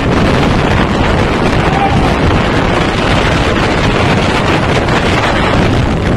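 Strong storm wind from the tornado rushing and buffeting the microphone: a loud, steady roar of noise with no let-up.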